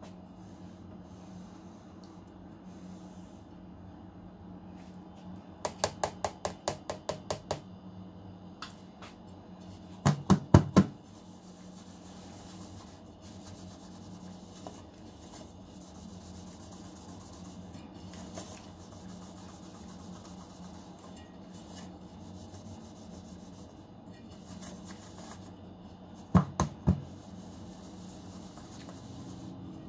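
Round cake pan of cheesecake filling knocked against the countertop in short runs of quick knocks, to level the filling: first about ten lighter knocks, four loud ones a few seconds later, and three more near the end. Soft scraping and rubbing of the spatula and hands on the pan comes in between, over a steady low hum.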